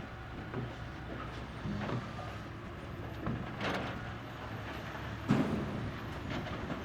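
Heavy diesel construction machinery running steadily, with scattered short knocks and clanks and one louder clunk a little past five seconds in.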